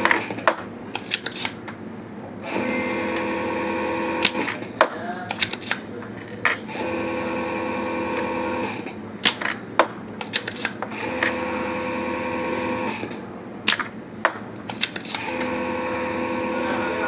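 A machine hum in runs of about two seconds, starting again regularly about every four seconds, with sharp clicks and knocks in the pauses between runs.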